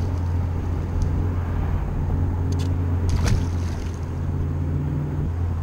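Boat's outboard motor idling steadily as a low hum, with a few short clicks over it.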